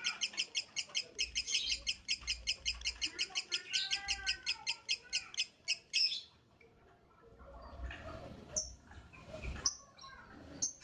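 Lovebird singing a long, rapid chatter of sharp repeated high notes, several a second, that stops abruptly about six seconds in. A few single chirps follow near the end.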